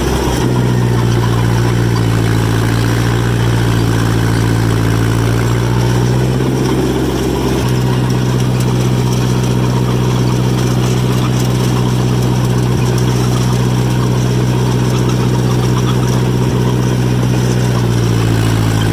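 John Deere 1010 crawler dozer engine running steadily while the machine travels, its pitch sagging briefly about six seconds in and again near the end. The owner puts the engine's smoke down to running rich.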